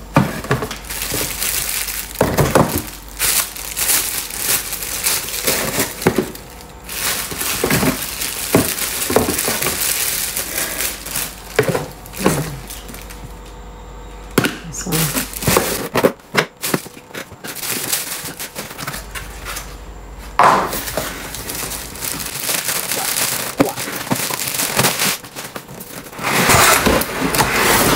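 Plastic packaging bags crinkling and rustling as wrapped parts are handled and pulled out of a cardboard box, with irregular sharp crackles and clicks throughout.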